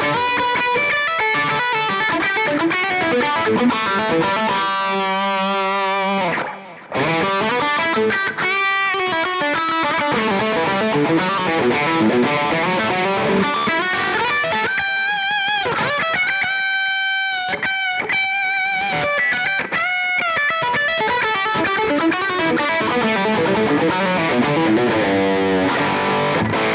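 Electric guitar played through a Line 6 POD X3 Live multi-effects floorboard on an overdriven lead patch with a soft delay added for ambience. It plays a melodic solo line of held notes with vibrato, breaking off briefly about six seconds in.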